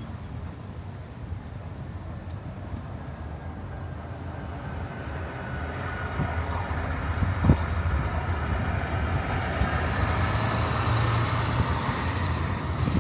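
Car driving along a city street: steady low engine hum and tyre noise on the road, building gradually louder through the middle, with one sharp knock about seven and a half seconds in.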